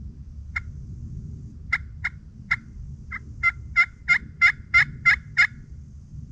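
Hen turkey yelps, about twelve in all. A few spaced notes come first, then a quicker run of eight about three a second, each a high note breaking down to a lower one.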